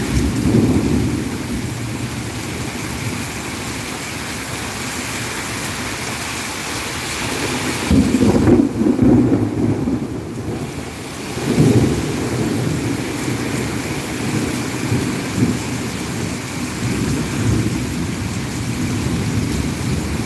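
Heavy rain pouring down in a steady hiss, with low rumbles of thunder: a short one at the start, a longer and louder roll about halfway through, and another just after it.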